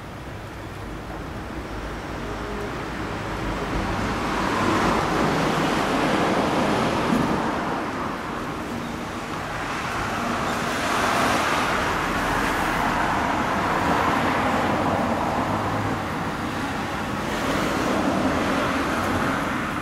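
Road traffic passing, its noise swelling up and fading away three times.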